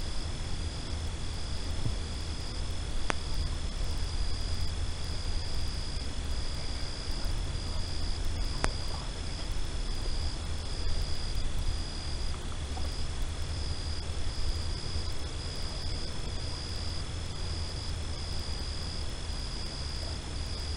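Night insect chorus: one insect trilling on a steady high note while another, higher pitched, pulses on and off about once a second, over a steady low rumble. Two faint clicks sound, about 3 and 9 seconds in.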